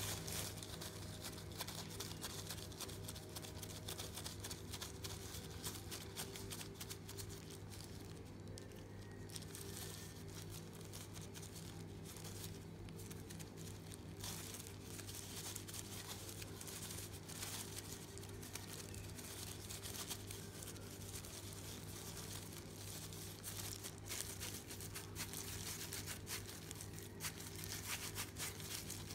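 Loose disposable plastic gloves crinkling and rustling irregularly as gloved hands roll and shape soft glutinous rice dough balls.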